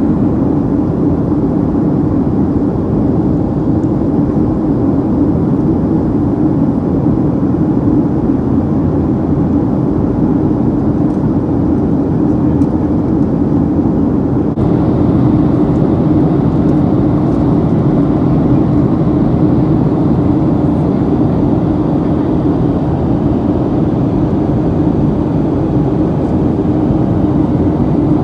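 Steady in-cabin drone of a Boeing 737-800 in flight, the rush of airflow and the hum of its CFM56-7B27 engines heard from a window seat. It gets slightly louder and brighter about halfway through.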